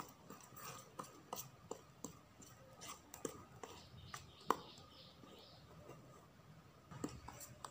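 Small wire whisk stirring cake batter in a metal bowl: faint, irregular clicks and scrapes of wire on the bowl, with one louder tap about halfway through.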